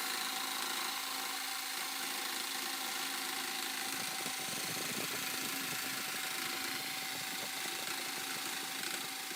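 Power tool's electric motor running steadily at constant speed, with a rougher, irregular patch in the middle.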